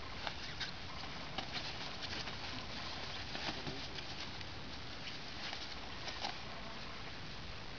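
Puppies scrabbling and rustling on the fabric of a play tunnel: scattered light scratches and crinkles over a steady background hiss.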